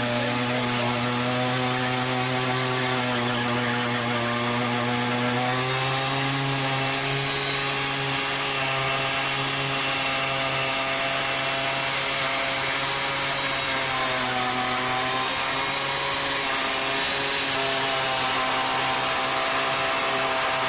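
Simson Star moped's 50 cc single-cylinder two-stroke engine running at high, steady revs. The pitch steps up slightly about five and a half seconds in and dips briefly a little past the middle.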